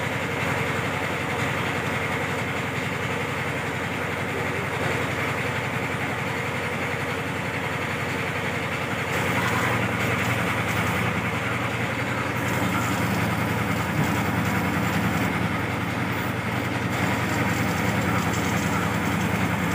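An engine hums steadily throughout. From about nine seconds in, the crackle of electric arc welding on the steel body of a combine harvester joins it.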